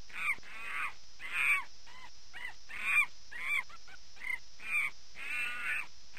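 Monkey calls: a rapid series of shrill cries, about a dozen, mostly short with a couple of longer drawn-out ones, spaced roughly half a second apart.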